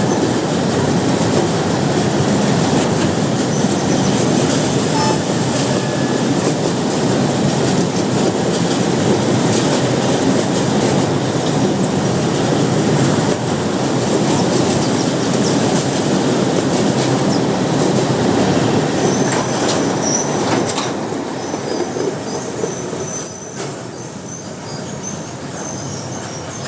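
Train running past on the rails, its wheels and wagons making a loud, steady rumble. In the last several seconds high thin wheel squeals come in and the rumble drops away after a short peak.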